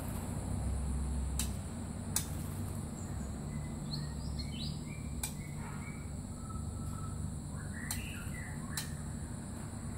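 Short bird chirps and calls, a cluster around the middle and another near the end, with a brief whistled note between them. Several sharp clicks sound at intervals over a steady low rumble.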